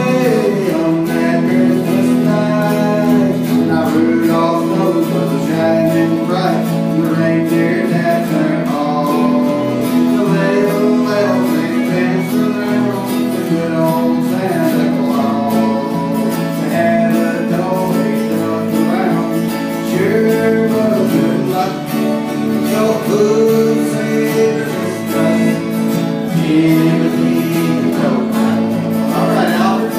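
Country string band playing an instrumental break: fiddles carry the melody over strummed acoustic and electric guitars.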